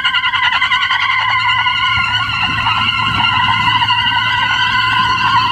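Vehicle tyres spinning and squealing on asphalt in a tractor-versus-SUV tug-of-war, a steady high squeal with an engine running under load beneath it.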